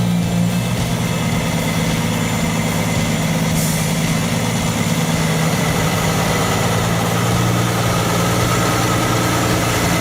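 Kenworth T659 log truck's diesel engine running at a steady, even note.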